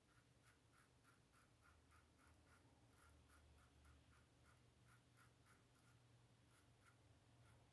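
Faint, quick scraping of a safety razor blade over light stubble, several short strokes a second.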